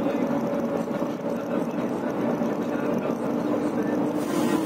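Steady engine drone and road noise heard inside a vehicle's cabin while driving at a constant speed, with a short hiss near the end.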